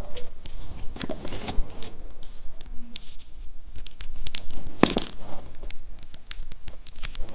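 Crinkling plastic lollipop wrapper being handled and torn open: a dense run of small crackles and clicks, with one louder snap about five seconds in.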